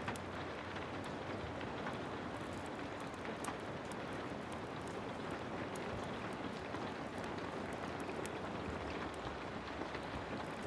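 Heavy rain falling steadily, with scattered sharp crackles and pops from a wood fire.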